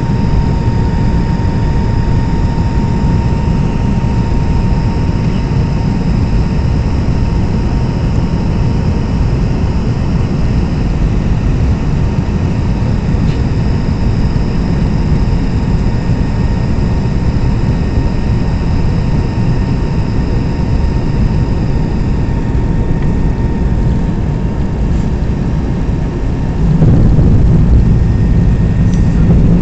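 Cabin noise inside a McDonnell Douglas MD-88 airliner during its approach: a steady low rumble of airflow and the rear-mounted Pratt & Whitney JT8D turbofans, with a faint steady whine over it. Near the end the rumble suddenly gets louder and stays louder.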